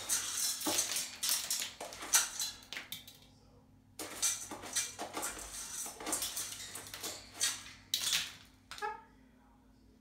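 Moluccan cockatoo rummaging with its beak in a stainless steel food bowl, rattling and clattering the bowl and its contents in quick runs, with a lull of about a second about three seconds in. A short call near the end.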